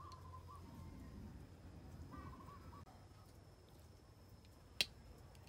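A single sharp clink of metal serving tongs against a ceramic plate near the end, over faint bird chirps in the background.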